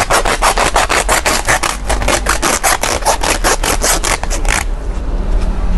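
Charcoal poured from a sack into an earthing pit, pieces scraping and rattling out in a quick even pulse of about six or seven a second as the sack is tipped, stopping about four and a half seconds in.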